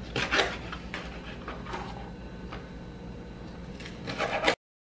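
Kitchen knife cutting through a small whole sardine on a plastic cutting board to take off its head, with scraping, crunching strokes: loudest just after the start and again about four seconds in. The sound cuts off abruptly near the end.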